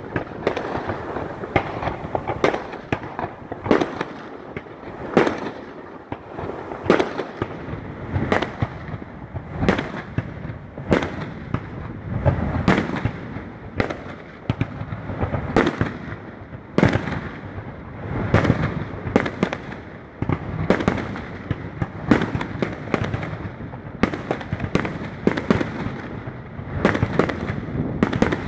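Aerial fireworks bursting in a continuous barrage: a sharp bang about once a second over a steady din.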